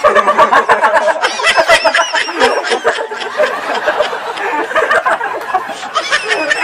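A group of people laughing and giggling loudly, with quick repeated bursts of laughter and no clear words.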